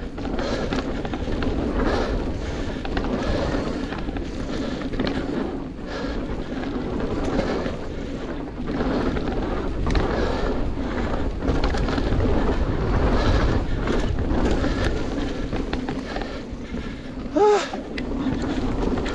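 Mountain bike running fast down a dirt singletrack: steady rumble of knobby tyres on hard-packed dirt with wind on the microphone, and frequent short rattles and clicks from the bike over bumps. A brief loud squeal comes about a second and a half before the end.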